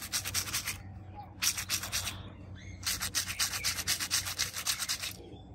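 Two mesh-covered squishy stress balls squeezed and worked in the hands, giving a fast, scratchy rubbing of about ten strokes a second. It comes in three bouts, the longest stopping about five seconds in.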